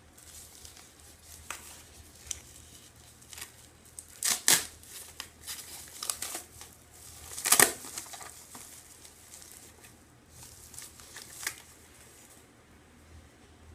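Product packaging being handled and opened, with scattered crinkling and rustling and two louder crinkles about four and seven and a half seconds in.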